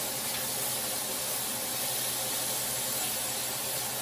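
Chicken sizzling steadily in an oiled grill pan.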